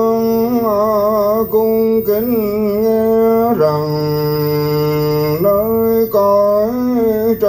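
A man's voice singing a slow Buddhist liturgical chant, long notes held with a wavering pitch and short breaks between phrases.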